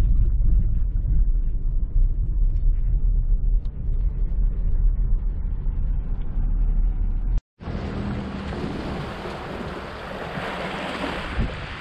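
Car interior road noise while driving, a steady low rumble. About seven and a half seconds in it cuts off abruptly to wind on the microphone and small waves washing against a rocky shore, a steady hiss.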